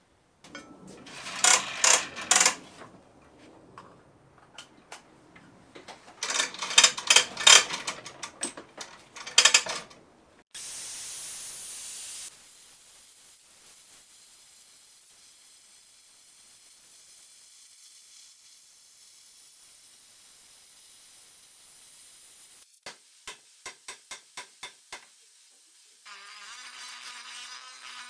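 Steel plates and parts clattering and clinking against each other. Then a plasma cutter starts with a loud hiss and runs on with a steady, quieter hiss for about ten seconds. A quick run of clicks follows, and near the end a small cordless power tool's motor starts with a whine.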